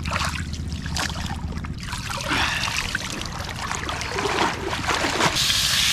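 Shallow seawater splashing and trickling as a filleted fish frame is dipped and lifted out dripping and a person wades through the water. About five seconds in it cuts to a steady hiss.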